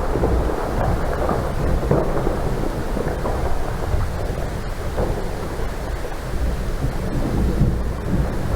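Hurricane wind and heavy rain: a loud, steady, low rushing rumble with no breaks.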